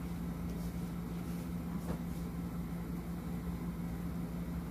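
A steady low machine hum holding one pitch throughout.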